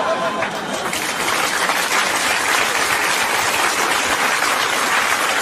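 Theatre audience applauding: steady, dense clapping from a large crowd.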